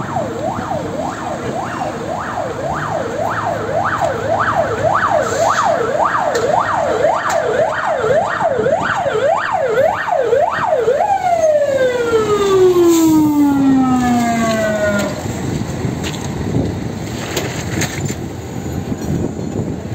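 Fire engine siren giving a fast rising-and-falling wail, about two sweeps a second, then switched off about eleven seconds in and winding down in one long falling glide. Afterwards only a low engine rumble and street noise remain.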